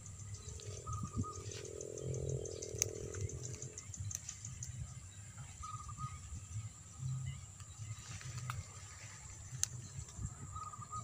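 Faint outdoor field ambience: a steady high-pitched hum and low rustling from handling, with a faint drawn-out pitched call from about half a second in to about four seconds.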